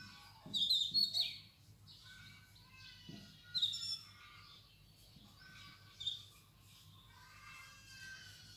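Small birds chirping in short calls, several times over, above a faint steady hiss.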